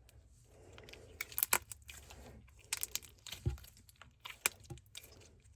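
Glossy slime with mixed-in Fruit Loop charms being stretched and squished by hand: soft sticky crackling with sharp clicks and pops as it pulls apart.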